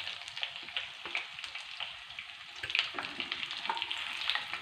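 Marinated chicken pieces sizzling and crackling as they shallow-fry in butter and sunflower oil in a pan, with a few sharper clicks of a utensil about two and a half seconds in as the pieces are lifted out.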